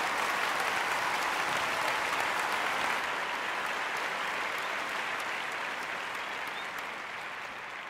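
Theatre audience applauding steadily, then slowly fading out over the last few seconds.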